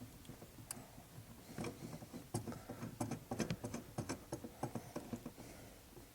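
New brake stop lamp switch being threaded by hand into its hole in the pedal bracket: a run of faint, irregular small clicks and ticks as the threads turn, several a second.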